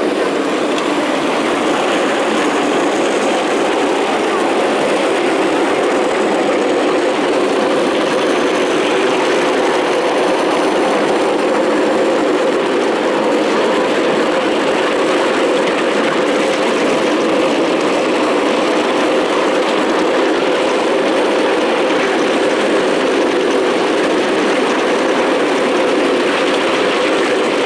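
Ride-on miniature park railway train running steadily along the track. The small cars' wheels make a continuous running noise on the rails, heard close to the wheels.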